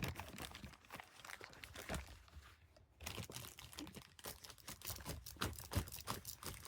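Crinkling and rapid irregular small clicks as a combination padlock and a bag are handled.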